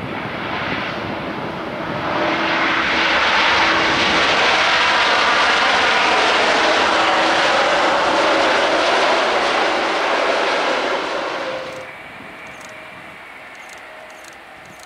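Rolls-Royce Trent 1000 engines of a Boeing 787-9 going into reverse thrust on the landing rollout: a loud, steady jet noise that swells about two seconds in and holds. Near the end it drops abruptly to a much quieter jet sound.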